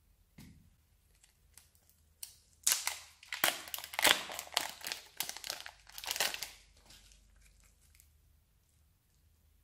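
Thin clear plastic wrapper crinkling and crackling as it is pulled and peeled off a lump of soft purple modelling clay, a dense run of crackles from about two and a half to seven seconds in.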